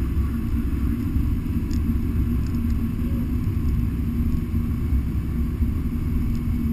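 Car engine running at steady revs, a constant low drone with a steady hum, heard from inside the cabin.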